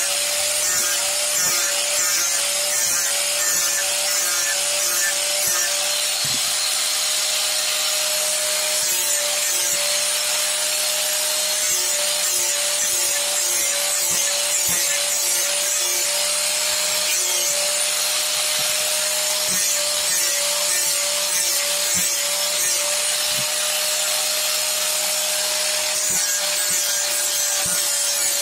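Hand-held electric angle grinder running continuously, its disc grinding into wood: a steady motor whine with a slight waver under a constant abrasive hiss.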